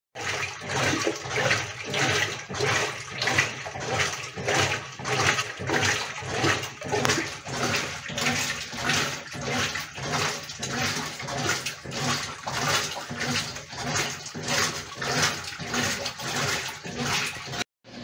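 Brastemp top-load washing machine agitating: water sloshing back and forth in the tub at about two strokes a second. It cuts off suddenly just before the end.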